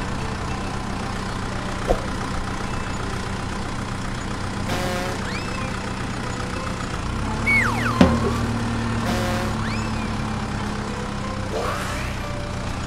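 Steady engine drone like a truck idling, with a few short whistling chirps over it.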